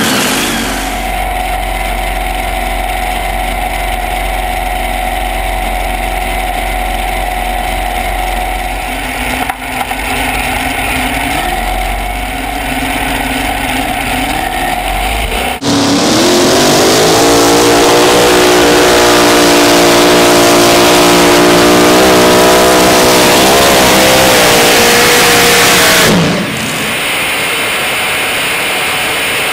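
Supercharged V8 of a pulling tractor running at low revs, then about halfway through it goes abruptly to full throttle. It runs loud for about ten seconds with its pitch climbing, then cuts off sharply near the end, leaving a steady hiss.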